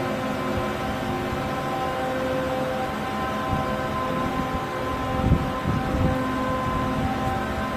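Steady hum of running injection-moulding machinery: several steady tones over a low rumble, with a couple of low thumps a little over halfway through.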